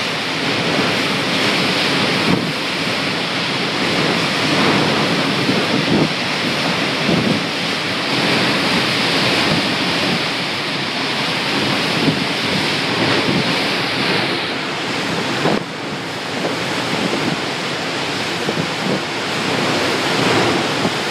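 Tropical-storm wind gusting with driving rain, a loud continuous rush that swells and eases with the gusts and drops a little about two-thirds of the way through.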